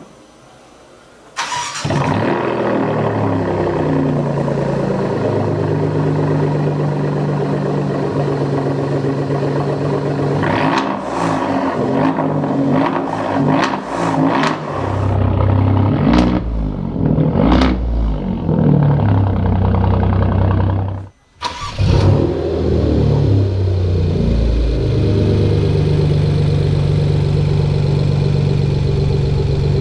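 Alfa Romeo Giulia Quadrifoglio's twin-turbo V6, breathing through a custom exhaust, fires up suddenly about a second and a half in and settles into an idle. It is then revved up and down several times, drops out abruptly about two thirds of the way through, and comes back to a steady idle.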